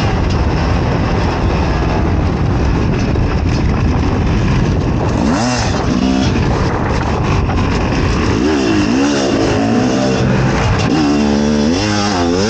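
Fantic XE 300 two-stroke enduro motorcycle engine under hard riding, a dense noisy running sound, then from about five seconds in its pitch rising and falling again and again as the throttle is opened and closed.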